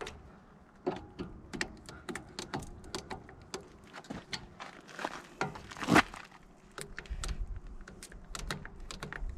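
Scattered metallic clicks and knocks of a grease gun being worked on the backhoe outrigger grease fittings, irregular, with the loudest knock about six seconds in.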